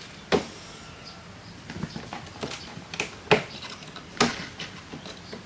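A handful of sharp, irregular knocks and taps, loudest about a third of a second in, a little past three seconds and just after four seconds.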